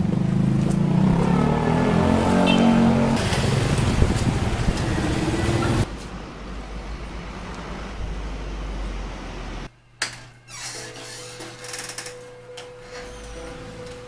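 Street traffic: vehicles passing along a road, then an abrupt drop to quieter background about six seconds in. Near the ten-second mark there is one sharp knock, followed by quieter ambience with a steady hum.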